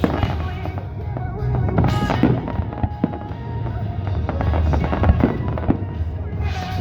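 Fireworks going off in a musical fireworks show: repeated sharp bangs, loudest about two seconds in and again about five seconds in, over a continuous low rumble, with music playing along.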